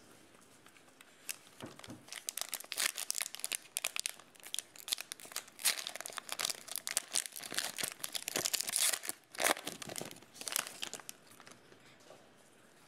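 Plastic wrapper of a Donruss football card pack being torn open and crinkled: dense crackling rustles that start a second or two in, are loudest past the middle, and die down about two seconds before the end.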